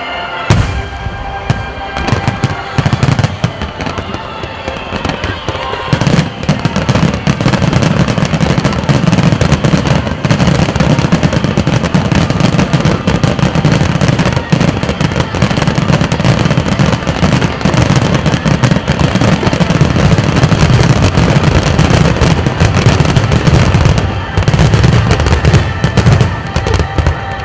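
Dense barrage of ground-level 'ground-crack' (jiwari) fireworks: rapid, loud bangs and crackling over a continuous rumble, starting about half a second in. It thins briefly a few seconds before the end, then bursts again.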